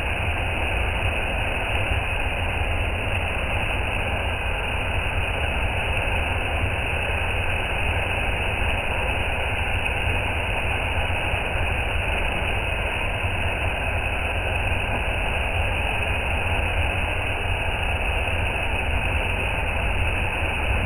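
Waterfall: a steady, unbroken rush of falling water, heavy in the low end.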